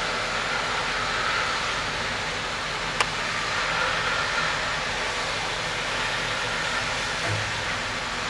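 Steady rushing noise of a load of bark sliding out of a chip trailer tipped up on a hydraulic truck dumper, with one sharp click about three seconds in.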